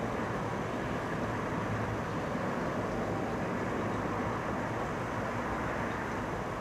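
Distant regional passenger train rolling through a rail yard, heard as a steady low rumble.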